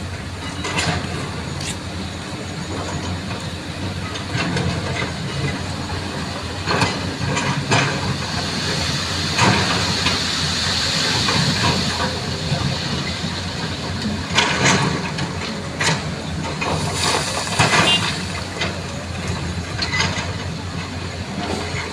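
Road traffic and road-repair work: a steady run of heavy vehicle noise with repeated knocks and clatters, and a hiss that swells and fades near the middle.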